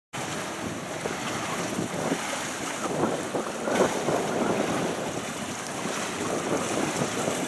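Wind buffeting the microphone over the wash of sea waves, a steady rushing noise that swells and dips irregularly.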